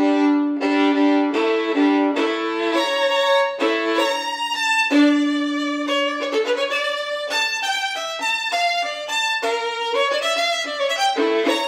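Solo violin bowed strongly, its strings rosined with CECILIA Solo rosin, playing a melody mostly in double stops over a recurring low note. A long held note comes midway, with a short slide in pitch.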